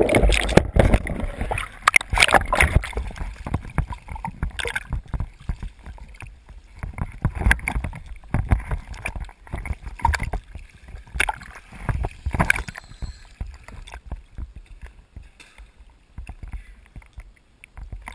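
Sea water sloshing and slapping against a diver's camera at the surface in a choppy swell: a loud rush of water as it breaks the surface, then irregular splashes and knocks from small waves, fewer toward the end.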